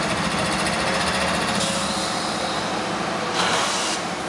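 Union Pacific diesel locomotives idling, a steady engine noise with a fast fine pulse, and a short hiss about three and a half seconds in.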